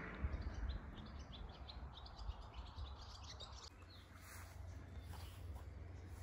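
Small songbirds singing outdoors: a run of short, high chirps in quick succession that thins out after about four seconds. A low, steady rumble runs underneath.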